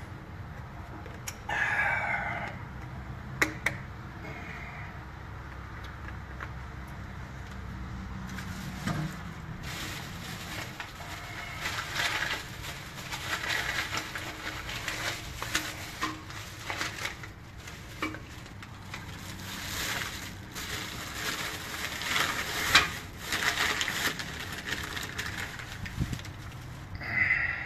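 Handling noise: crackling and rustling as the phone is moved about and rubbed against clothing, with a few sharp clicks and knocks, densest through the second half.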